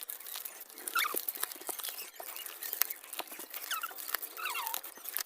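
Coins and paper notes being handled and sorted, with scattered small clinks and rustles, and a few short high chirps over them about a second in and again near the middle.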